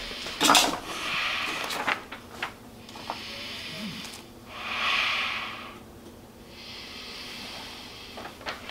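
A man breathing heavily through a Michael Myers mask: several long, noisy breaths, with a sharper snort-like breath about half a second in. Small rustles and clicks come from a cloth bag being handled.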